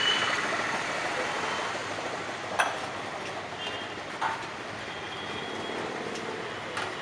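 Steady rushing background noise, with two sharp knocks about two and a half and four seconds in as a lid is put on a large aluminium cooking pot.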